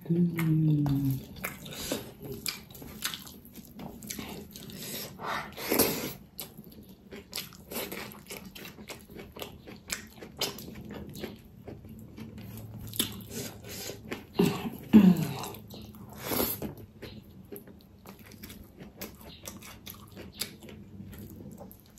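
Close-up wet chewing and mouth clicks of someone eating pork trotters, with many small sharp smacks throughout. A brief falling hum sounds near the start and again about 15 seconds in.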